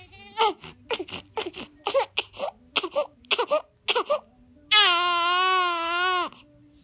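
A baby crying in a string of short, choppy bursts that sound like coughing, about a dozen in four seconds. Then comes one long, steady cry of about a second and a half, which stops abruptly.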